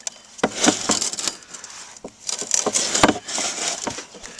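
Small metal Allen-head drain plugs rattling and clinking in a pan, in two bouts of clatter: one about half a second in, another from about two seconds in.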